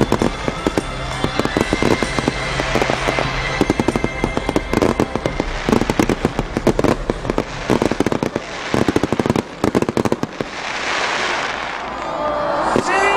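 Aerial fireworks going off in rapid, dense volleys of bangs and crackles. They thin out after about ten seconds into a rising hiss.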